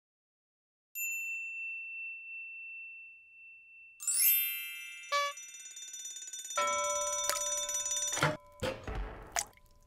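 Electronic logo sound effect: a single high bell-like ping about a second in that rings on, then a rising shimmering sweep about four seconds in that opens into a bright held chord of chime tones with clicks through it. It breaks off near the end into a few short plopping blips.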